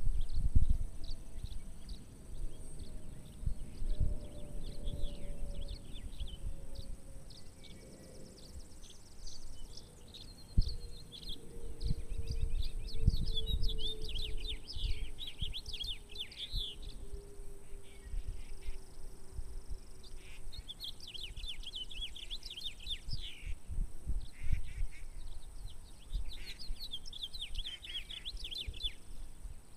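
Songbirds singing, with repeated short trills and chirps, over wind buffeting the microphone in low gusts. A faint thin tone slowly falls in pitch through most of the first twenty seconds.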